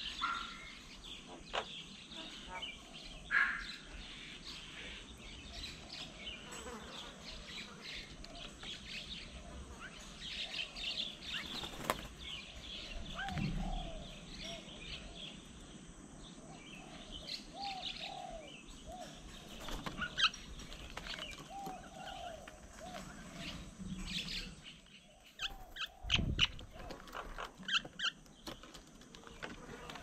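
Mynas at a feeding table giving scattered short chattering calls and chirps, with wing flaps and a few sharp knocks as birds land and take off.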